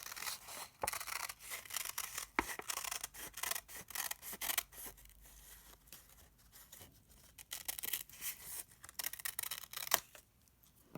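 Scissors cutting through folded paper: a run of short, irregular snips with paper rustling between them, dying away about a second before the end.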